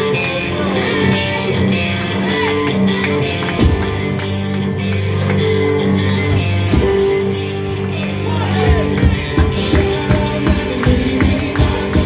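A live rock band playing a song, with guitar and singing. A regular drum beat stands out in the last few seconds.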